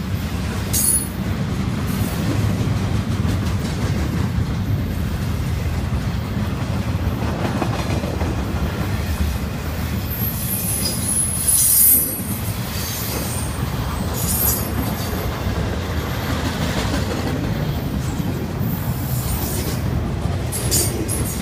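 Double-stack intermodal freight cars rolling past close by, a steady low rumble of steel wheels on rail. High-pitched wheel squeals come and go several times, loudest about halfway through.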